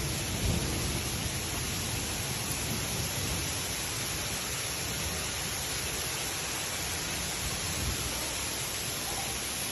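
Steady hiss of a heavy storm downpour, even throughout with no distinct strikes.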